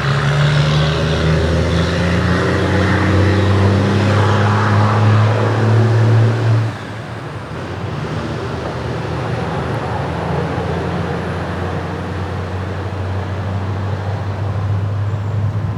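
Class 43 diesel power cars of a passing train: one engine's loud note drops away abruptly about six and a half seconds in, leaving the steady rumble of the train rolling by. A second engine's note builds again near the end.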